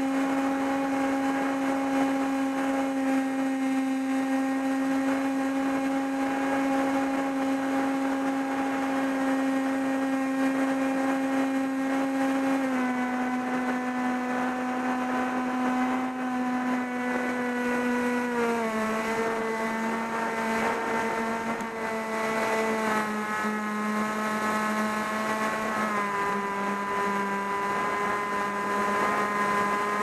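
An RC plane's motor and propeller, heard from the onboard camera, run at a steady whine with a rush of wind over the microphone. The whine drops in pitch in three steps, a little before halfway, a little past halfway and near the end, as the throttle is eased back.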